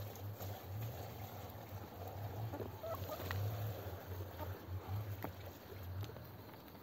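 Muscovy ducks pecking at a piece of fruit on the ground, with short pecking clicks and a few soft fowl calls about two and a half to three seconds in, over a steady low rumble.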